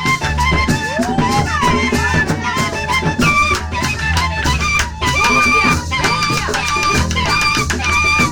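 Music with a repeating bass line, drums and held melody notes.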